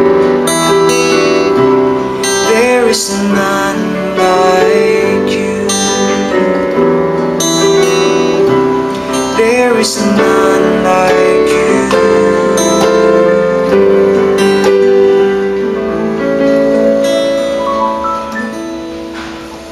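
Electronic keyboard and guitar playing the closing instrumental of a worship song, with held notes and chords, fading out over the last few seconds.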